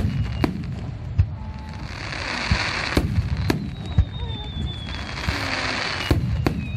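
Fireworks finale: aerial shells bursting in a rapid, irregular run of sharp booms over a continuous crackle, with thin high tones sliding slowly down in pitch.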